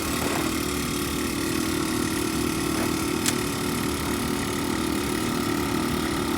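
A motor running steadily with a constant hum, with one short click about three seconds in.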